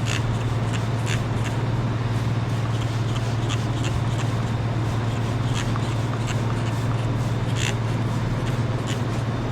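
A steady low mechanical hum, with scattered light clicks and taps over it.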